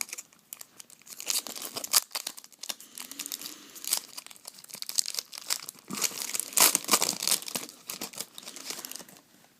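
Foil wrapper of a Bowman Chrome baseball card pack being torn open and crinkled in the hands, an uneven crackle that comes in bursts, loudest about two seconds in and again near six to seven seconds.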